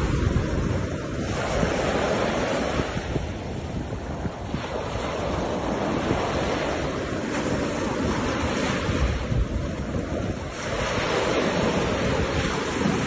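Ocean surf breaking and washing up the beach, a steady rush of water that swells and eases, with wind buffeting the microphone.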